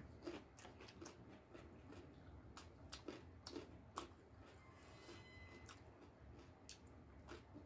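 Faint mouth sounds of people eating: chewing and lip smacks, with scattered small clicks.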